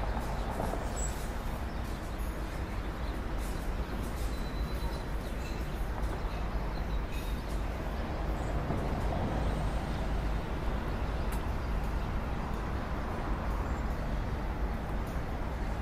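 Steady low rumble with hiss, a constant background noise, with a few faint taps in the first few seconds.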